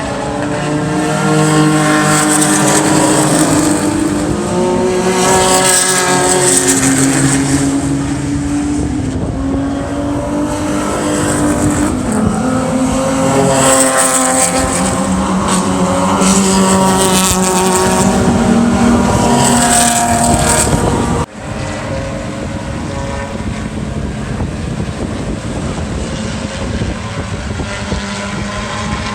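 Several race cars at speed passing one after another on a circuit, their engines climbing and dropping in pitch through gear changes and braking. About 21 seconds in, the sound cuts abruptly to a steadier, lower engine note.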